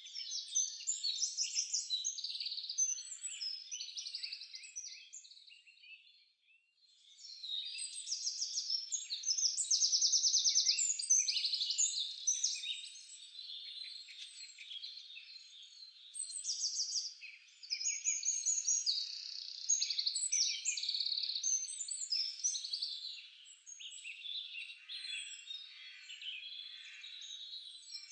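Many small birds chirping and trilling at once, high-pitched calls overlapping densely, with a brief lull about six seconds in.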